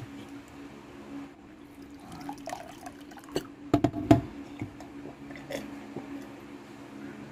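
A man drinking water from a glass, with a quick run of loud gulps and clicks about three and a half to four seconds in. A steady low hum runs underneath.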